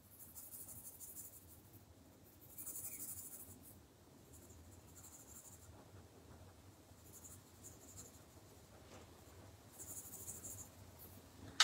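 A Derwent Chromaflow coloured pencil shading on drawing paper: faint scratchy scribbling in about five short spells of a second or so each, as a colour swatch is filled in.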